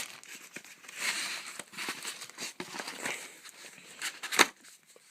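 Packaging crinkling and rustling as items are lifted out of a hard drive's retail box, with many small crackles and one sharp click about four seconds in.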